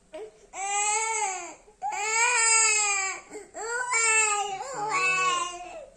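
A little boy crying hard in four long, high wails, each rising and then falling in pitch, while he is being massaged for his cough.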